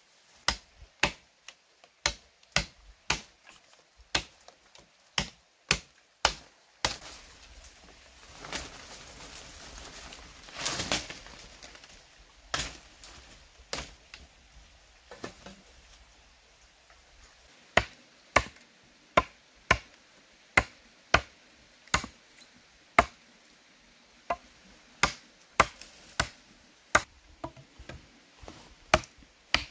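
Repeated sharp chopping strikes of a blade into wood, about one a second. The strikes break off for several seconds in the middle, where there is a stretch of rustling, then resume at a steady pace.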